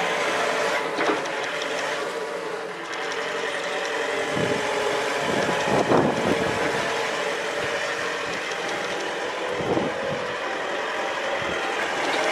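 Linde H45D diesel forklift running and driving, its engine a steady drone with a whine, and a few short knocks.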